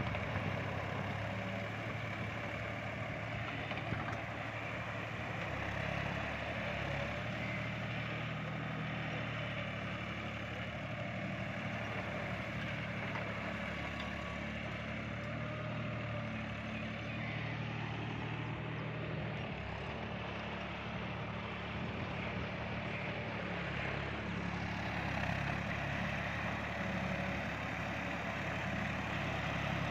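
John Deere 5310 tractor's three-cylinder diesel engine running steadily as it drives a rotavator through flooded paddy mud.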